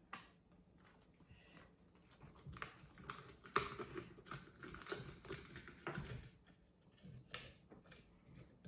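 Faint rustling and crackling of a red cabbage leaf being folded and pushed down into a glass jar over packed shredded cabbage, with light scattered clicks, the loudest about three and a half seconds in.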